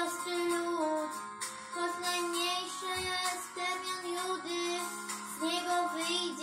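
A girl singing a Polish Christmas song about Bethlehem over instrumental accompaniment, her melody wavering with vibrato on held notes.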